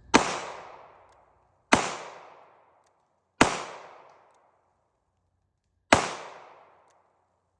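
Four handgun shots, fired at uneven intervals of roughly one and a half to two and a half seconds, each trailing off in an echo that dies away over about a second.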